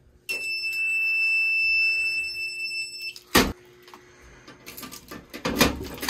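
Fire alarm sounder giving a steady high-pitched tone for about three seconds, which stops just before a single sharp click. Keys jangle near the end.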